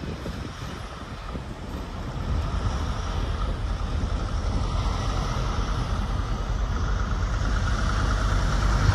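Diesel-electric locomotives CP 3065 and CP 2270 running under power as they move away down the track: a steady low engine rumble that grows somewhat louder after about two seconds and again near the end.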